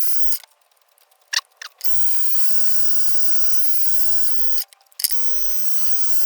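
Micro metal lathe's small motor running steadily with a thin whine while turning Delrin, dropping out suddenly twice: for about a second and a half near the start and for half a second near the end, with sharp clicks around the gaps.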